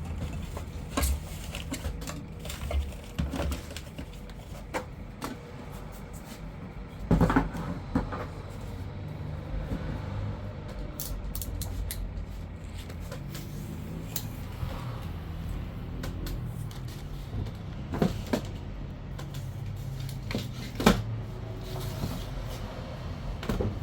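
Scattered knocks and thumps, the loudest about seven seconds in and again near 18 and 21 seconds, over a steady low hum.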